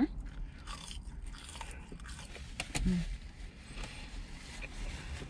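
Close chewing and biting sounds of people eating a cheeseburger and French fries, with scattered small mouth clicks and one sharper click a little under three seconds in. A low steady hum runs underneath.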